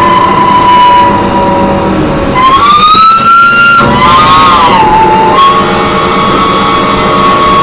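Loud, high-pitched screech from a New Flyer D40LF transit bus, heard on board: a squealing tone that glides upward about two and a half seconds in, drops again, then holds steady. The uploader puts it down to the brakes or the Voith transmission.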